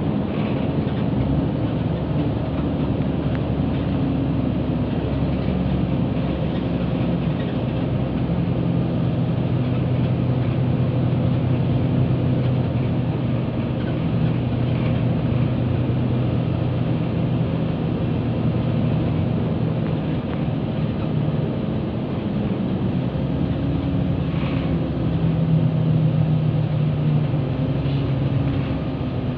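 Steady ride noise heard from inside a moving vehicle: a low engine or motor drone over road rumble. The drone shifts slightly in pitch and grows a little louder a few seconds before the end.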